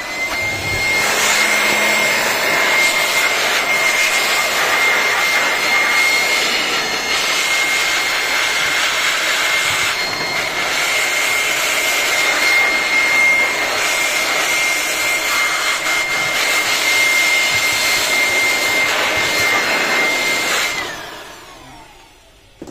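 Electric air blower running steadily, blowing into the opened printer: a loud rush of air with a high motor whine. It spins up at the start and winds down about two seconds before the end.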